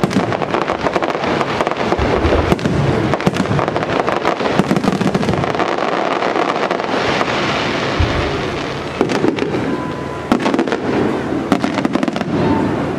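Aerial fireworks display: shells bursting one after another with dense rapid crackling from crackle-star effects, loud throughout and easing slightly in the last few seconds.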